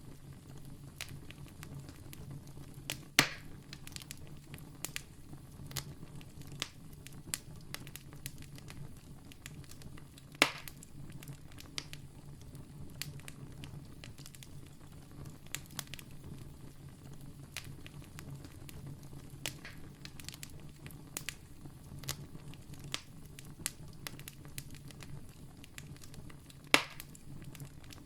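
Wood campfire crackling, with frequent small irregular snaps and three louder pops: a few seconds in, about ten seconds in, and near the end. A low steady rumble of the burning fire runs underneath.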